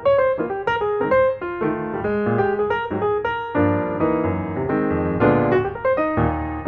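Background piano music: a quick run of notes over bass chords.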